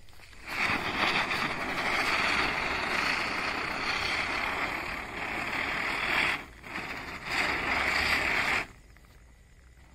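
Large ground spinner firecracker (chakri) hissing loudly as it spins and sprays sparks on the ground. The hiss dips for a moment a little past six seconds, picks up again and cuts off abruptly near the end.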